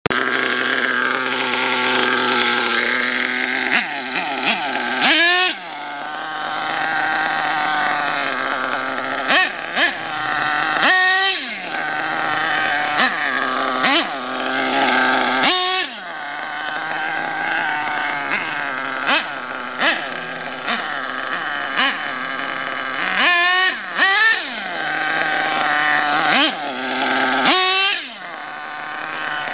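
HPI Savage XL nitro RC monster truck's small glow-fuel engine running hard, with a high-pitched buzz that climbs and falls as the throttle is blipped and the truck accelerates and slows, several quick rev-ups through the run.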